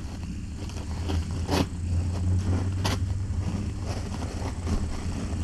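Steady low hum of background room noise, with a few brief soft clicks about one and a half and three seconds in.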